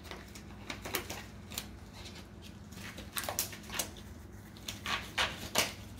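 Disposable gloves being pulled on: rustling with irregular small clicks and snaps, over a steady low hum.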